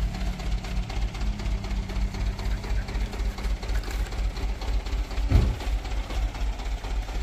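Large diesel truck engine running at low revs, a low, even throb that pulses several times a second, with one brief louder sound about five seconds in.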